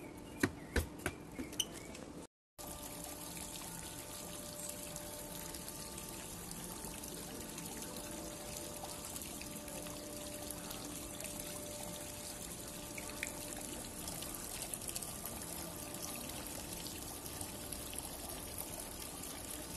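Water splashing and trickling steadily from a tiered garden fountain. A few sharp clicks come in the first two seconds, then the sound drops out briefly before the water begins.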